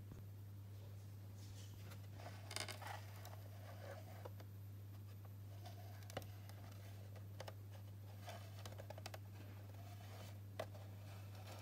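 A quiet room with a steady low electrical hum, broken by a few faint scattered clicks and short rustles.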